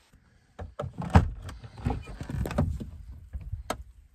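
A camper van's door being unlatched and opened: a few sharp clicks and knocks, over a low rumble of storm wind.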